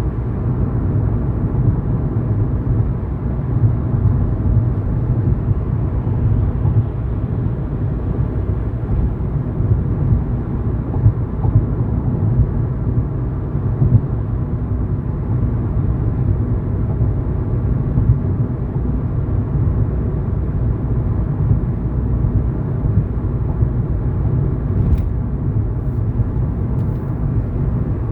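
Steady low rumble of a car driving at road speed: engine and tyre noise on the road, with a couple of faint ticks near the end.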